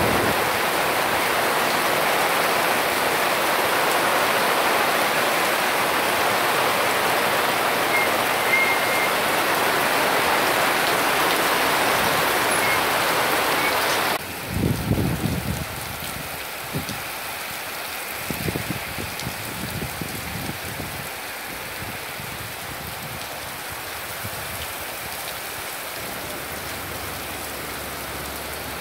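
Heavy rain pouring down, a loud, even hiss. About halfway through it drops suddenly to a quieter rain hiss, with a few low rumbles in the next several seconds.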